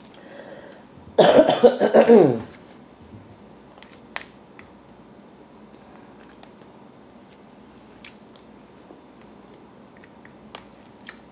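A person coughs, a quick run of several coughs about a second in, with a falling pitch. Afterwards a few faint light clicks of a plastic fork against a plastic food container as she eats.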